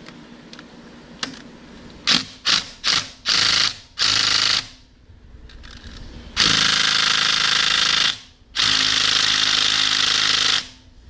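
Impact wrench hammering on tight 13 mm bolts, in a handful of short bursts and then two longer runs of about two seconds each; the bolts are too tight to break loose.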